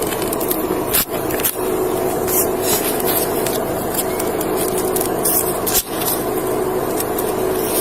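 Police bodycam audio: a steady hiss over a low steady hum, with a few sharp knocks and a faint, distant high-pitched cry that some hear as a scream. It sounds more mechanical than a scream and is taken for a distant car's squealing brake pads.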